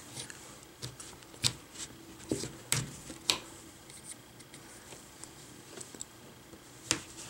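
A hobby knife prying along the seam of a laptop screen's plastic bezel, making sharp plastic clicks and snaps as the bezel's clips let go, with faint scraping between. Several clicks come in the first three or four seconds, then a pause and one more near the end.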